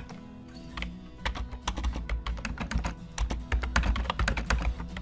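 Typing on a computer keyboard: a quick, uneven run of keystrokes entering a short phrase.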